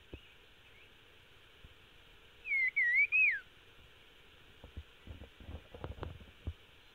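A caged songbird sings one short whistled phrase about two and a half seconds in, quick wavering notes that end on a falling slur. Several faint knocks follow near the end.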